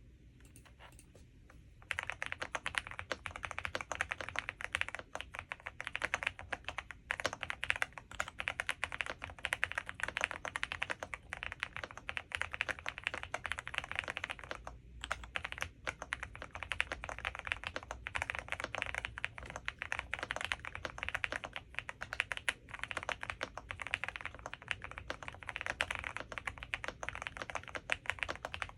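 Stock Infi75 mechanical keyboard with TTC Xizi switches being typed on: a fast, continuous stream of key clacks that begins about two seconds in, with a brief pause about halfway.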